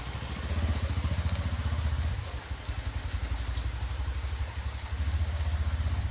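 A motor engine running with a low, steady pulsing rumble that swells for the first two seconds and again near the end, with a few faint clicks about a second in.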